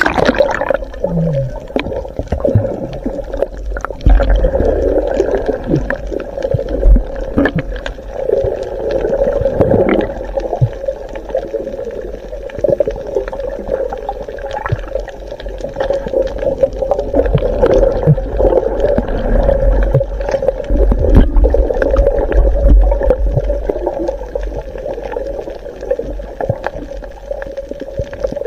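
Underwater sound picked up by an action camera below the surface: muffled water gurgling with a steady low hum, a rumble that swells and fades, and many scattered clicks and knocks. There is a sharp splash-like burst at the very start as the camera goes under.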